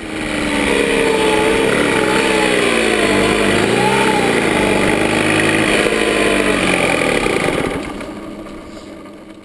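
Puch MS50 moped's fan-cooled 70 cc two-stroke engine running on the road, its revs falling as the moped slows from about 75 km/h, with a brief rise and fall in pitch about four seconds in. The sound fades out near the end.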